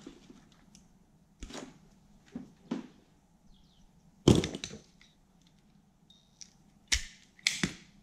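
Hand tools such as crimpers and pliers clacking and clattering against each other on a workbench as they are handled. There are a few separate sharp knocks, the loudest a short clatter about four seconds in, and two more near the end.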